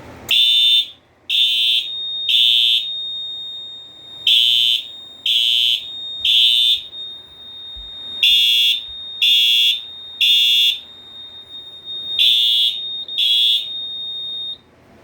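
FCI HES-STW fire alarm horn on its horn tone, sounding code 3: three half-second blasts, then a pause, repeated, after a System Sensor i3 smoke detector's test button puts the Silent Knight 5820XL panel into alarm. A steady high tone at the same pitch runs under the blasts. Both cut off about a second after the last blast, which comes partway through the fourth group.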